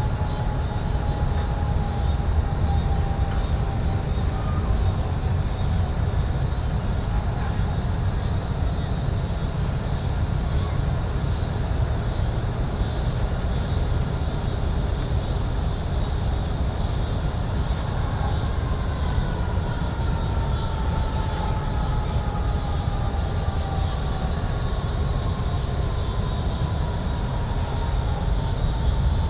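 Downtown city street ambience: a steady low rumble of traffic, with faint tones sliding slowly down in pitch near the start and again from about two-thirds of the way through.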